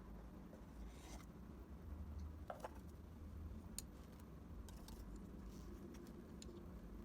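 Faint handling noises: a few light clicks and short rustles of small objects being moved, the sharpest click a little before the middle.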